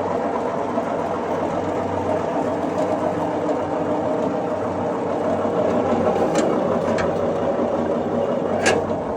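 Bearcat 50 wood chipper's engine running steadily, slightly louder for a few seconds in the middle. Three sharp metallic clicks come over it in the last few seconds, the last one the loudest.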